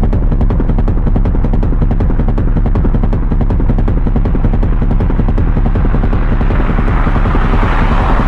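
A loud, steady low rumble with rapid fluttering clicks running through it; a hissing wash swells up over the last two seconds.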